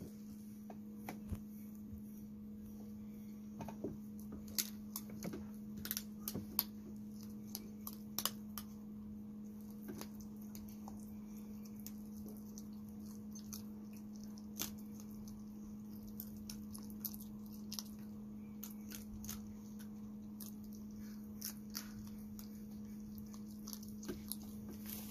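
Red fox chewing food off the ground: scattered small crunching clicks, irregular and thickest in the first half, over a steady low hum.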